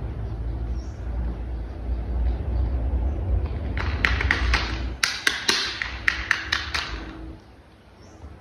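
A low rumble, then about a second in from the middle a quick run of sharp plastic clicks and taps as toy parts are fitted and snapped together.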